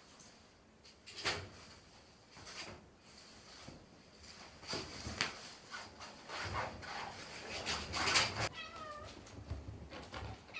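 A domestic cat meows once, a call of about a second, near the end, amid short bouts of rustling and scuffling from animals moving about.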